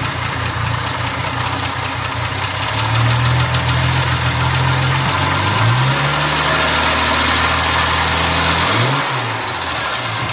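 Jaguar Mark II's straight-six engine running just after it has finally started, having refused to start before. The revs climb to a higher steady pitch about halfway through and fall back near the end.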